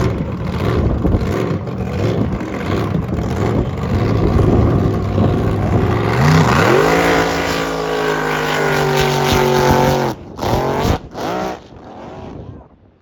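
Drag boat engine running loud. About six seconds in its pitch climbs and holds high for some three seconds, then cuts off suddenly, followed by a couple of short bursts.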